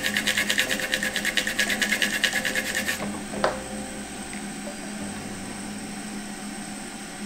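Toothbrush bristles scrubbing a graphics card's circuit board wet with alcohol, in quick, even strokes, to clean the freshly soldered area. The scrubbing stops about three seconds in, followed by a single light tap.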